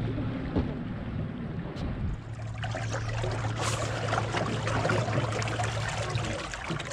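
Bass boat's bow-mounted electric trolling motor running with a steady low hum that cuts off near the end, with water trickling and lapping around the hull.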